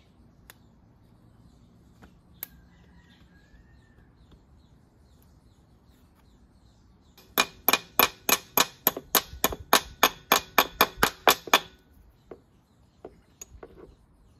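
Socket ratchet clicking steadily, about four or five sharp metallic clicks a second for roughly four seconds midway, as a bolt on the scooter's CVT inner case is turned. A few single light metal clicks come before and after.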